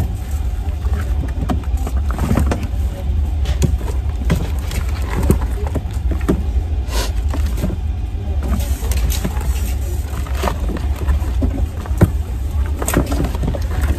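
Children's shoes being rummaged through and dropped, an irregular scatter of knocks and clatters, over a steady low rumble.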